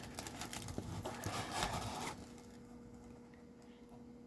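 Faint rustling and light clicks of cardboard and fireworks packaging being handled for about two seconds, then only a faint steady hum.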